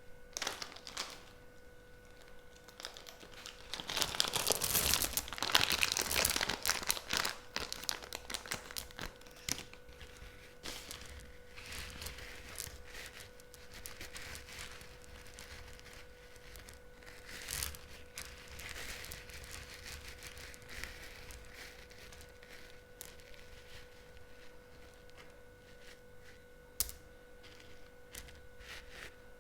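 Candy wrappers crinkling and tearing as sweets are unwrapped by hand. The crackle is loudest and densest from about four to seven seconds in, then gives way to lighter rustles and small clicks.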